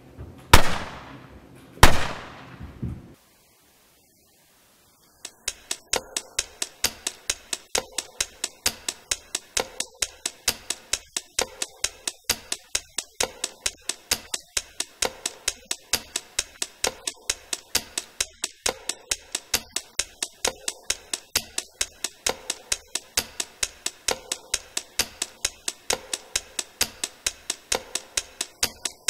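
Two loud booming hits, one at the start and the second about a second and a half later, each trailing off in a falling whoosh. After a short silence comes a steady, rapid ticking, about three ticks a second, that keeps on evenly.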